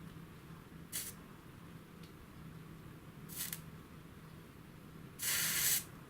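Hot soldering iron sizzling on acid-fluxed wire ends as they are tinned with solder: a short hiss about a second in, another a couple of seconds later, and a longer, louder sizzle near the end.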